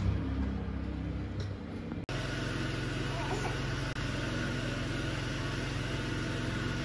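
A steady low mechanical hum with faint voices in the background; the hum changes abruptly about two seconds in.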